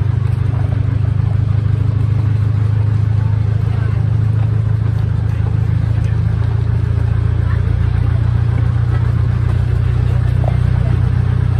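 Steady low engine drone from a small heritage railway locomotive hauling a slowly moving carriage, running at an even, unchanging pace.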